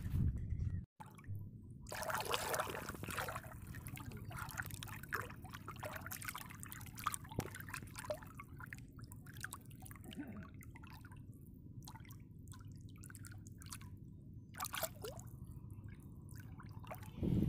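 Pond water gently lapping and dripping around a person moving neck-deep through it, with scattered small drips and ticks and a brief silent gap about a second in.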